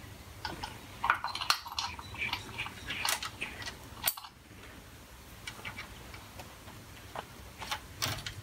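Metal clinks and light knocks from steel lathe change gears being handled and fitted onto the gear train. The clicks come thick for the first few seconds, then only now and then.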